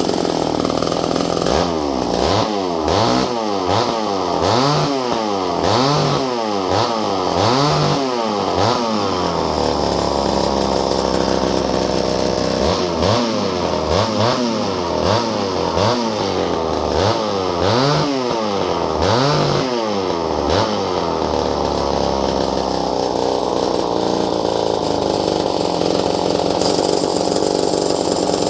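Ported two-stroke chainsaw engine revved up and down again and again, its pitch climbing and falling about once a second. It holds a steady high speed for a few seconds in the middle and through the last third.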